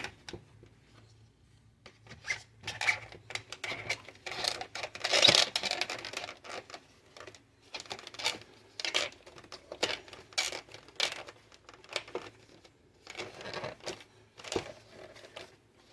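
Plastic console cup holder parts being handled and fitted back into place: an irregular run of rustling, scraping and clicks, the loudest about five seconds in.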